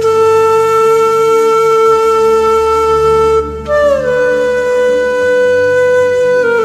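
Background music: a wind instrument plays two long held notes over a low drone. The first note breaks off a little past halfway. The second is higher and slides down near the end.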